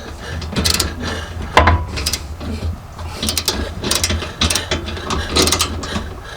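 Socket ratchet wrench clicking in several short bursts of rapid ratcheting as a hitch mounting bolt is turned and tightened.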